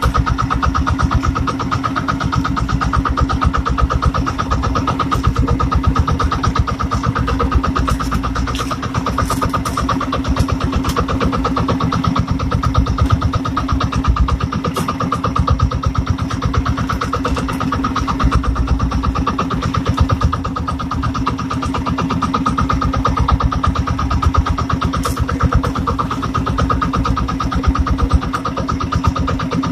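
Engine of a motorized outrigger fishing boat running steadily under way, a fast even beat with an unchanging drone.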